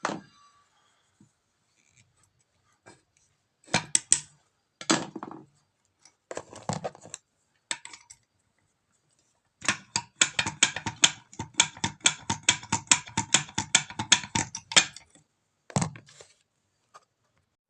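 Metal parts and hand tools knocking and scraping during starter-motor work: a few separate clanks, then a quick run of strokes, about six a second, for some five seconds, and one last knock.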